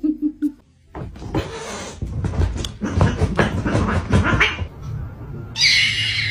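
Two cats scuffling in a play fight, a busy rustling with many quick sharp sounds for about three and a half seconds. Near the end a white kitten lets out a loud, high, squeaky cry.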